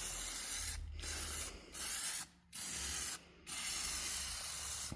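Aerosol can of John Deere Green spray paint hissing in five short bursts of about half a second to a second and a half each, with brief pauses between them.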